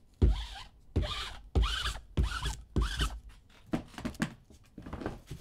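Sticky lint roller rolled back and forth over a surface, the adhesive crackling off in about five quick strokes, followed by a few lighter taps.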